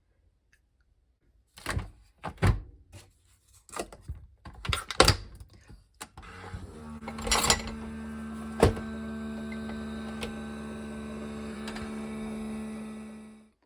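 A few sharp knocks and clatters, then a steady humming drone with a held tone that runs for several seconds and fades out near the end.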